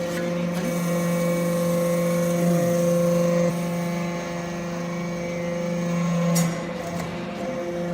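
Hydraulic copper briquetting press running with a steady mechanical hum. The hum drops a little about three and a half seconds in, and there is a short clunk about six and a half seconds in.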